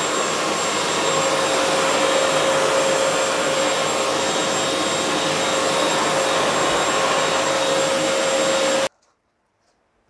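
Eureka Forbes Quick Clean DX 1200-watt canister vacuum cleaner running steadily as its floor nozzle is pushed over a bare floor, a steady rush of air with a steady whine. The sound stops abruptly near the end.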